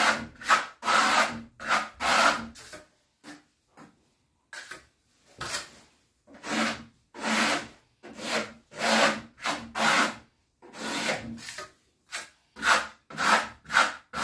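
Plastering trowel scraping a thin coat of marmorino plaster across a sample board in short, repeated strokes, about one or two a second, with a brief pause near the start.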